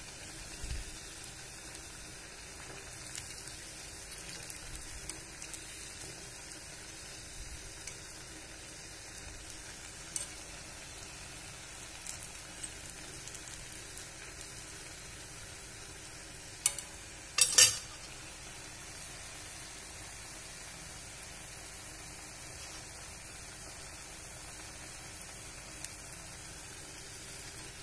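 Bondas of rice and urad dal batter deep-frying in oil in an iron kadai, a steady sizzle. A few clinks of a metal skewer against the pan, the loudest a quick pair a little past halfway.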